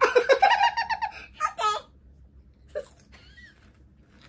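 A woman laughing loudly for about the first second and a half, then two short, quieter laughs or vocal sounds.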